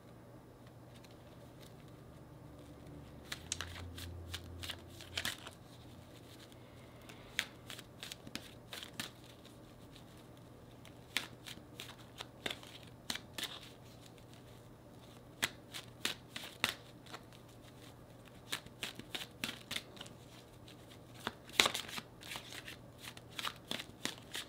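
Tarot deck being shuffled hand to hand: short runs of quick, sharp card flicks and taps with pauses between them, beginning a few seconds in. The loudest run comes near the end.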